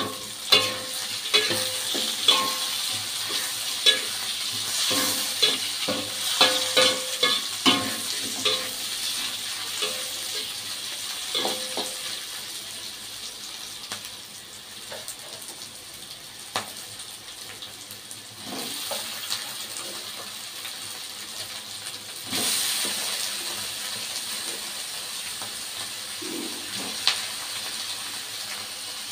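Aromatics sizzling in hot oil in a wok while a metal spatula scrapes and clacks against the pan, busiest over the first dozen seconds. About 22 s in the sizzle jumps louder as shelled mussels go into the wok, with a few more spatula knocks after.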